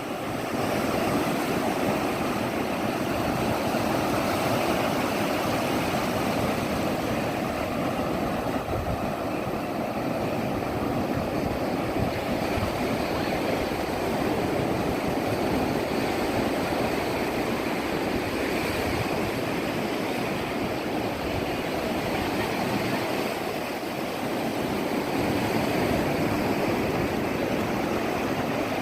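Sea surf washing on a beach: a steady rushing of waves that swells and eases gently in loudness.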